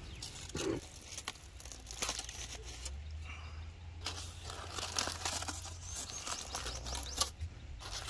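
Aluminium foil crinkling and tearing as hands peel open a foil-wrapped fish parcel fresh from cooking in hot sand, with quick, irregular crackles.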